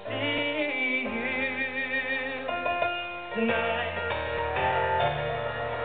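A male singer holds a long, wavering note over electric keyboard chords. The voice then fades back and the keyboard chords carry on, changing every second or so.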